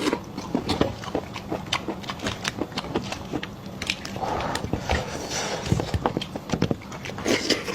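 Close-up mukbang eating sounds: rapid wet chewing and lip smacks, a dense run of short clicks, with a brief breathy or slurping hiss twice.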